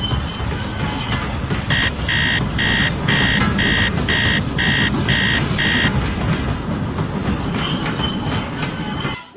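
Electric model freight train rolling along a plastic elevated track: a steady rumble of wheels on rail. For a few seconds in the middle a run of electronic beeps repeats about twice a second, and a thin high whine sits over the rumble at the start and again near the end.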